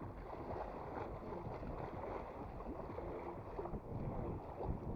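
Strong wind buffeting the microphone: an uneven low rumble.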